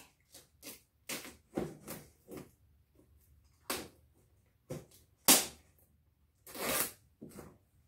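Scissors cutting at the seal on a cardboard toy box, with the box being handled: a series of short snips and scrapes, the sharpest about five seconds in and a longer one shortly before the end.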